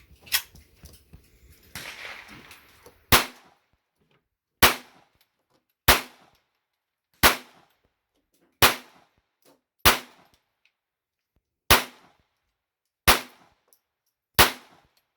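A Smith & Wesson M&P 22 semi-automatic .22 LR pistol firing nine single shots at a steady pace, about one every second and a half, beginning about three seconds in.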